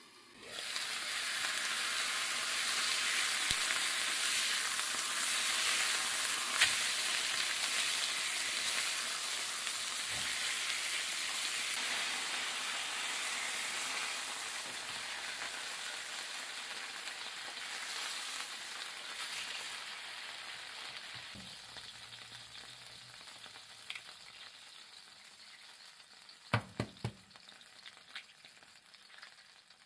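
Slices of meat sizzling in oil in a hot non-stick frying pan. The sizzle starts suddenly and is loud at first, then dies down gradually. Near the end come a few sharp taps as an egg is cracked on the pan.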